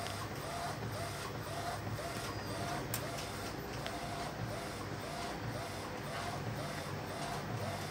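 Epson Artisan 1430 inkjet photo printer printing: the print-head carriage shuttles back and forth in a steady, even rhythm with a short whirring tone on each pass, while the paper feeds out line by line. A single sharp click about three seconds in.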